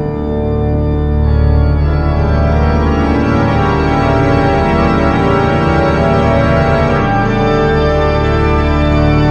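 Music of sustained, held chords that change every few seconds.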